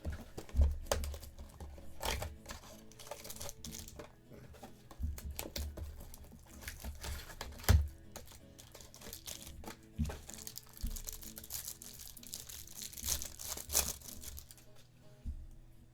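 Trading card packs being torn open and their wrappers crinkled, with cards clicking and rustling as they are handled, and a sharp knock about eight seconds in. Quiet background music plays throughout.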